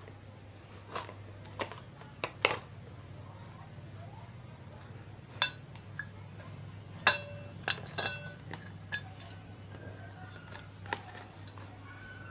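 Scattered light metallic clicks and clinks, a few ringing briefly, as ceiling fan parts and tools are handled during disassembly, over a steady low hum.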